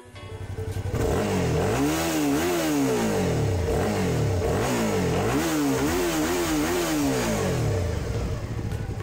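Suzuki V-Strom 650's 645 cc 90-degree V-twin engine, close-miked at the exhaust silencer while standing still: idling, then blipped in two bursts of quick throttle revs that rise and fall, settling back to idle near the end.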